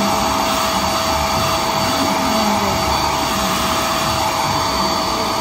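Handheld hair dryer blowing on hair: a continuous rush of air with a steady whine.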